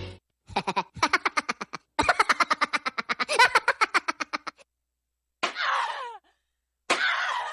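Preset sound effects played from a live-streaming sound card: first a fast, rattling string of short pitched pulses lasting about four seconds, then after a pause two short sounds that fall in pitch.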